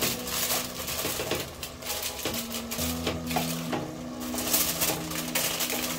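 Aluminium foil crinkling and rustling as hands press and smooth it down over a cooking pot, an irregular crackle.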